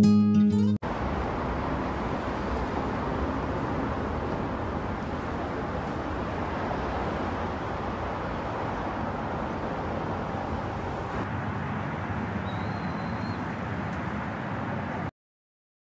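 Steady road and engine noise inside a moving car's cabin, cutting off suddenly near the end. A strummed guitar from the intro music ends under a second in.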